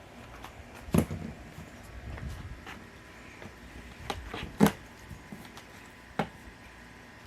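Knocks, taps and clatter of a mountain bike and its packing being handled during unboxing, loudest about a second in and again around the middle.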